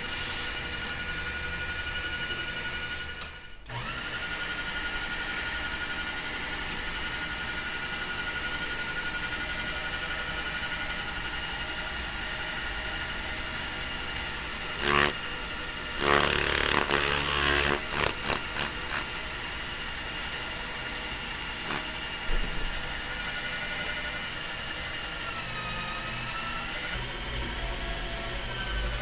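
A small power tool's motor running steadily, with a short louder, rougher stretch about halfway through.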